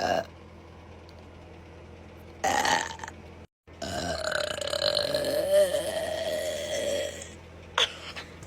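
Women burping in quick succession. There is a short belch about two and a half seconds in, then one long drawn-out belch of steady pitch lasting over three seconds, and another short belch near the end.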